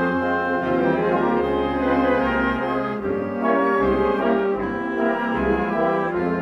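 Brass band playing a Holy Week processional march: full held brass chords over bass notes that change every second or so.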